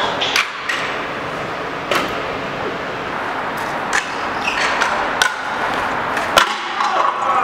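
Street-skating sounds: wheels rolling on hard pavement, with about five sharp clacks of boards and riders' wheels striking a concrete ledge and the ground.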